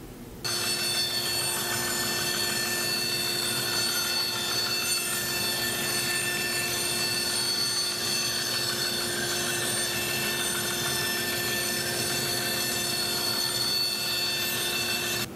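Laguna 14|12 bandsaw running and cutting a circle in plywood on a circle-cutting jig: a steady hum and whine of several held tones with little change. It starts abruptly about half a second in.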